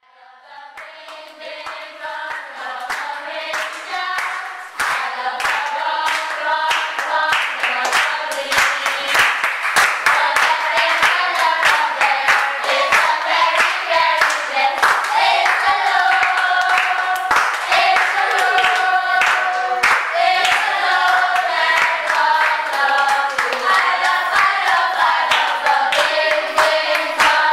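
A group of voices singing a song together with steady handclaps on the beat, fading in over the first few seconds.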